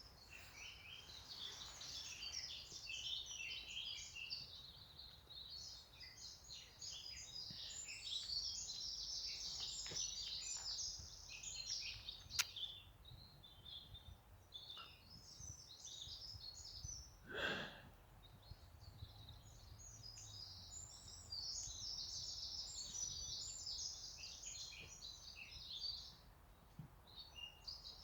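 Many small birds chirping and twittering in a dense, busy chorus that thins out for a few seconds past the middle. There is one sharp click just before the middle and one brief louder sound about two-thirds of the way through.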